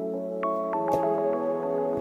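Soft ambient background music of sustained notes, with a few new chiming notes coming in about half a second and a second in, and a brief click about a second in.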